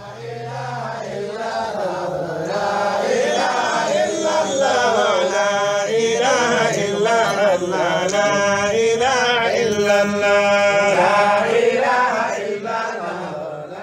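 Chanted vocal music with a wavering, drawn-out melody, swelling over the first few seconds and fading out near the end.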